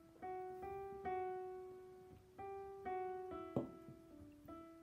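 Slow piano music, single notes and chords struck about once a second and left to ring out and fade, with one short knock about three and a half seconds in.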